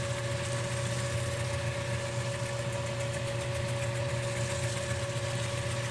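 Flat lap sander's motor running steadily with a constant hum, wet-grinding a lava rock pressed flat on its 220-grit disc under running water.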